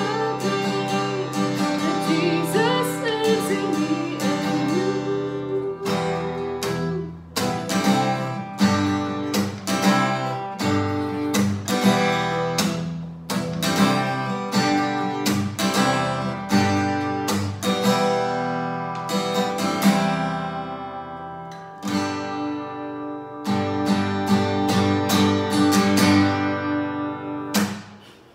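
Acoustic guitar strummed in a steady rhythm, with a woman singing over the first few seconds. The guitar then carries on alone and rings out at the end.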